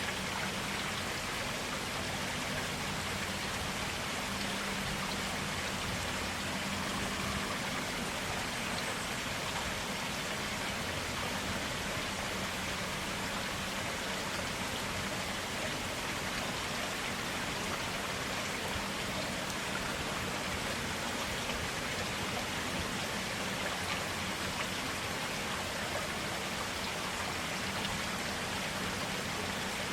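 A small forest stream of clear water running steadily, an even, unbroken splashing rush.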